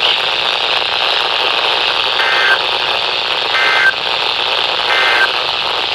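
Weather-radio receiver hissing with static, over which three short, identical data bursts of an Emergency Alert System (SAME) signal sound about 1.4 seconds apart, starting about two seconds in. Bursts this short, coming three times right after an alert message, are the end-of-message code that closes the broadcast.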